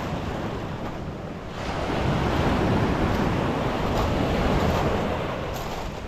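Black Sea surf breaking and washing up a pebble beach, one wave swelling about one and a half seconds in and easing off near the end, with wind on the microphone.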